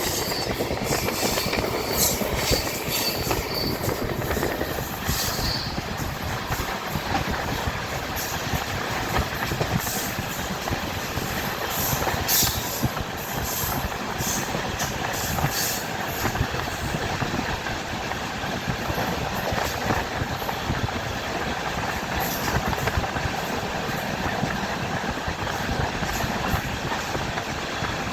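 Passenger train running on the rails, heard from inside a coach at the window: a steady rumble of wheels and carriage, with scattered sharp clicks and rattles, most of them in the first half.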